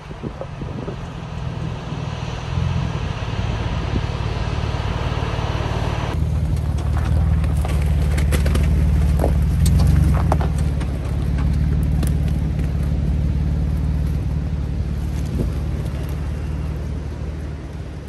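Jeep Wrangler JK crawling slowly over loose rock, its engine running low and steady while tyres crunch stones with scattered sharp clicks. For the first few seconds wind and surf hiss over the engine.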